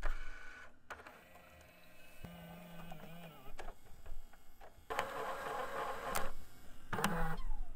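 Electronic glitch and TV-static sound effects: stuttering snatches of tone and a wavering electronic warble, then bursts of static hiss that cut in and out abruptly.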